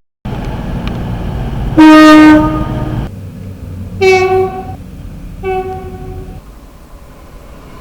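Train's two-tone air horn: one long, loud blast on the low note, then two shorter, quieter blasts on the higher note. Under it runs the rumble of the train, which drops away about six seconds in.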